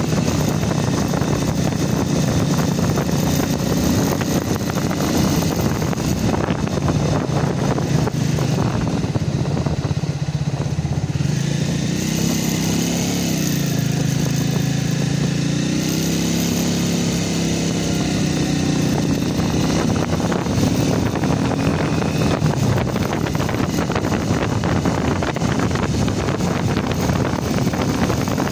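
Motorcycle engine running under way, with wind rushing over the microphone. The engine pitch sags about ten seconds in, then climbs again a few seconds later.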